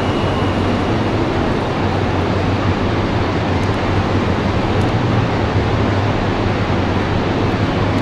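Steady roar of Niagara Falls' crashing water and the churning river below it, with a low steady hum underneath.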